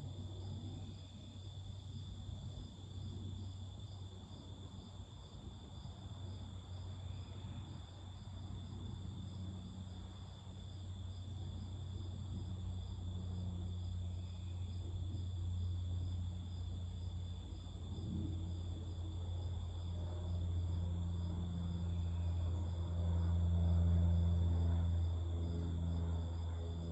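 Crickets chirping steadily in a high, continuous trill. Under them a low drone swells through the second half, with a layered tone joining it near the end.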